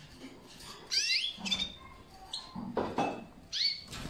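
Canaries giving short, high chirping call notes, several sliding quickly upward in pitch, in small clusters about a second apart. A brief rustle comes about three seconds in.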